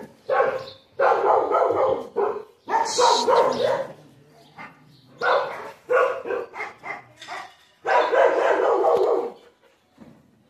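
Dogs barking in repeated bursts, some short and some drawn out for about a second, with a brief lull partway through.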